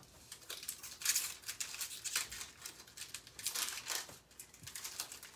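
Trading card pack wrapper being torn open and crinkled, with cards rustling as they are handled, in a series of short bursts that are loudest about a second in and again around four seconds.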